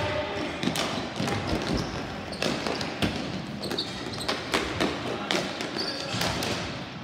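Ball hockey play: sticks and the plastic ball clacking and knocking on the sport-court floor in a run of irregular sharp hits, with indistinct voices of players on the floor.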